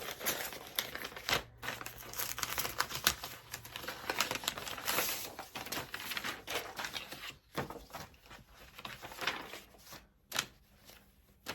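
A mailing envelope being opened and fabric fat quarters handled: crinkling, rustling and some tearing, dense for the first several seconds, then a few sparser rustles and taps.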